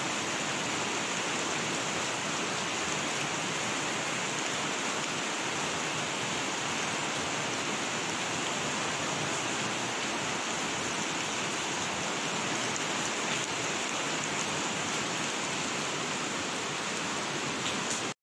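Fast-flowing floodwater rushing through a flooded street, with heavy rain: a steady, unbroken hiss that cuts off abruptly near the end.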